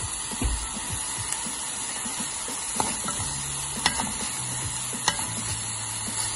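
Onion and coconut mixture sizzling in oil in a nonstick pan while a steel spoon stirs it, with three sharp clicks of the spoon against the pan in the second half.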